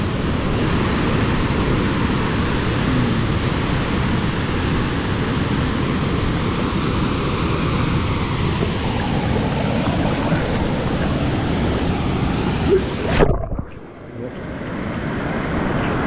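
Waterfall water pouring and splashing close to the microphone as a steady rush. About 13 seconds in, the sound abruptly turns muffled and dips, then the rush builds back up dull.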